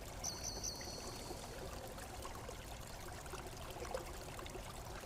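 Faint steady background hiss, with a thin high tone that wavers a few times for under a second, a moment after the start.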